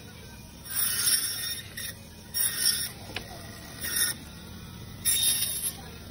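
Meat band saw slicing a frozen fish into steaks. Four harsh rasping cuts as the blade goes through the frozen flesh and backbone, the first the longest, with the saw's motor humming steadily between them.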